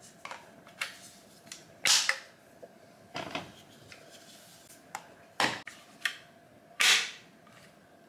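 Sharp plastic clicks and snaps of Dyson vacuum attachment tools being handled and clipped together, about six separate clicks a second or so apart, the loudest about two seconds in and near the end.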